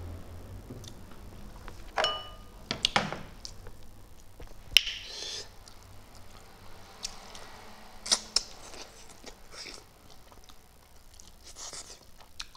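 Close-up eating sounds of fish eaten by hand: scattered mouth clicks and smacks. About two seconds in comes a short ringing clink of dishware set down on the table, and a sharp click follows a few seconds later.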